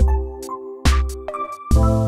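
Electronic background music with a steady beat: held synth chords over deep drum hits that come a little faster than once a second.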